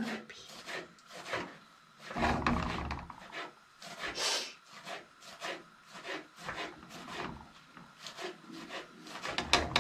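Irregular scraping and rubbing strokes from a metal spoon and a non-stick frying pan of pancake batter being handled on a gas stove's grate.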